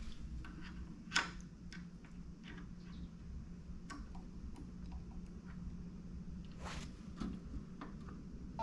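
Scattered light clicks and taps from setting the music playing, over a low steady hum; the sharpest click comes about a second in and another near the end.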